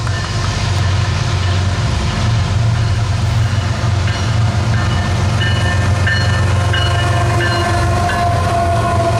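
Union Pacific GE ES44AC locomotives (GEVO V12 diesels) passing close by under power at the head of a stack train, engines running with a loud, steady deep drone over the rumble of wheels on rail. Short high-pitched tones come and go over it from about halfway through.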